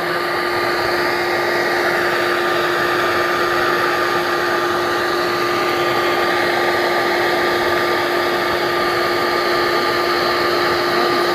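Vacuum motor running steadily, a loud continuous hum with a whooshing rush of air.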